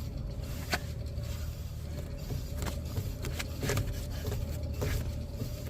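Rear wheel hub of a 2009 Honda Civic spun by hand, grinding with a steady drone and scattered clicks: the sign of a bad rear wheel bearing.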